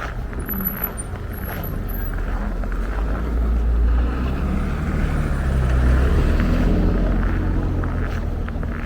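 A motor vehicle passing by: a low engine rumble that builds, is loudest around the middle and fades toward the end.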